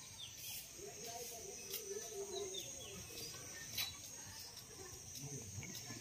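Outdoor ambience: small birds give short, falling chirps now and then over a steady, high-pitched insect buzz.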